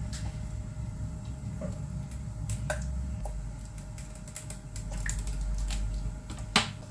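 Cooking oil poured from a plastic bottle into a wok, with small clicks and knocks of the bottle being handled, over the steady low rumble of a lit gas burner. A sharp knock near the end.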